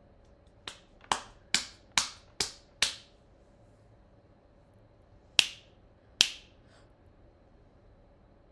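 Finger snapping: six quick snaps at about two a second, then, after a pause, two more snaps a little under a second apart.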